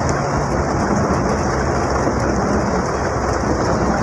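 Steady rain falling on the roof and windows, heard from inside a Mitsubishi L300 van's cab, with the van's engine humming low underneath.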